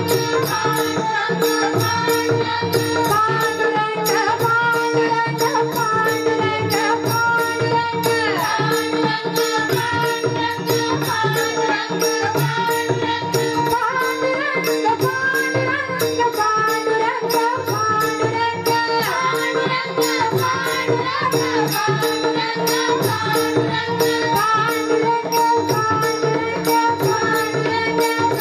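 Marathi devotional bhajan: a woman singing a wavering melody over a steady held drone, with hand percussion keeping a quick, even beat.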